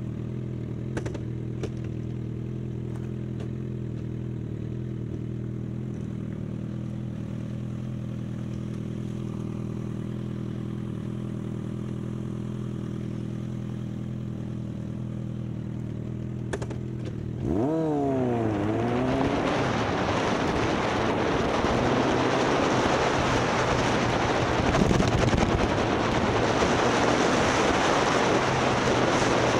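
Motorcycle engine idling steadily, with a few faint clicks. About 17 seconds in it revs and pulls away, its pitch climbing and dropping several times through quick gear changes. After that it runs at speed under loud wind noise.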